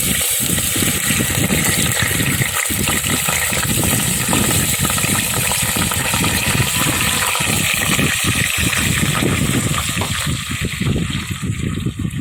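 Tuna frying in hot oil with garlic in a pan: a steady, dense sizzle that starts as the tuna goes in and eases off near the end.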